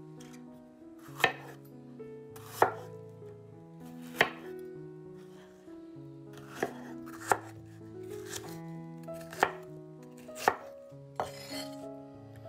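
A chef's knife chopping red bell pepper on a wooden cutting board: about nine single sharp strikes, unevenly spaced roughly a second apart. Soft background music with slow, held notes plays underneath.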